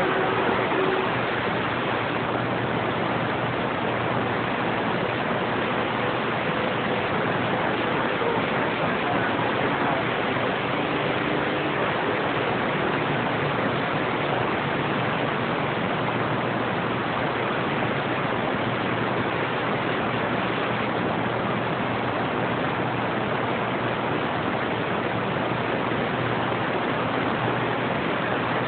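Steady hiss and static from a radio receiver on an open channel with no station coming through, with a faint low hum under it.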